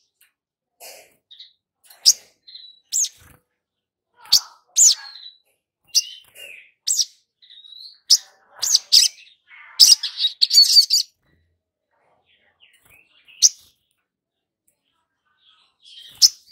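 Little spiderhunter (sogok ontong) calling: sharp, high chirps a second or so apart, with a quick burst of chattering about ten seconds in, then a pause and a couple more single chirps.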